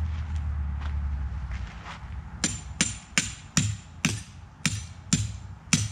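Tent stake being hammered into the ground for a hammock tarp line. There are about nine sharp, evenly paced strikes, two to three a second, starting a little over two seconds in, each with a slight metallic ring.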